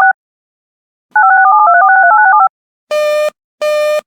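Rapid sequences of telephone touch tones (DTMF), each pair of tones changing about ten times a second, in two runs of about a second with a short gap between them. About three seconds in, a buzzy beep starts repeating at about one and a half beeps a second, like a busy signal. The tones separate one emergency alert message from the next.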